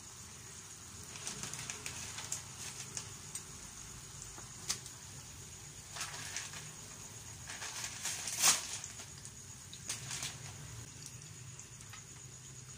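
Crinkling and clicking as instant noodle packets are handled and dry noodle blocks go into a frying pan of simmering water, in scattered bursts with the sharpest about eight and a half seconds in. The water simmers faintly underneath.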